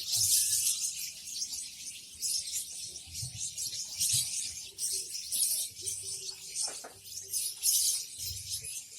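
Many caged lovebirds chattering together: a dense, continuous, shrill twittering.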